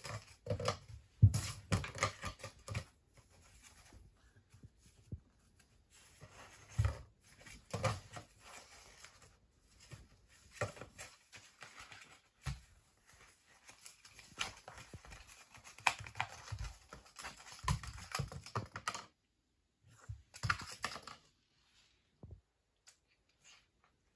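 A cat batting and rolling a cardboard toilet roll tube on a wooden floor: irregular clicks, taps and scrapes of the tube and of claws and paws on the boards, coming in bursts.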